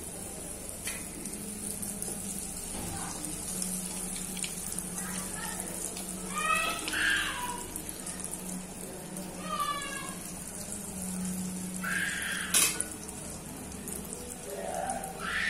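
Chicken kola urundai ball deep-frying in hot oil in an aluminium kadai: a steady sizzle and bubbling. Two brief high-pitched calls sound in the background about midway, and a sharp click comes about three-quarters through.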